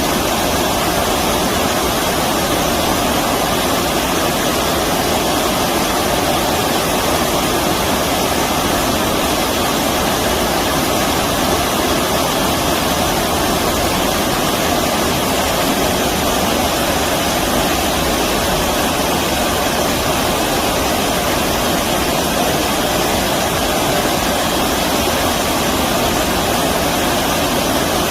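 Stream water rushing, a steady, even noise.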